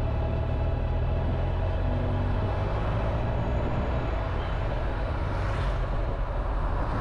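Motorcycle engine running steadily at road speed, heard from the rider's seat with wind and tyre noise. An oncoming car rushes past about five and a half seconds in.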